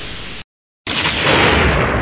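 Rain-and-thunder ambience cuts off abruptly. After a short silence a loud rushing noise begins, with a faint falling whistle over it, swelling and then slowly fading.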